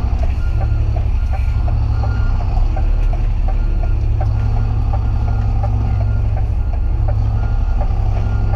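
DAF lorry's diesel engine running with a steady low drone, heard from inside the cab, while short high beeps repeat over it about every half second.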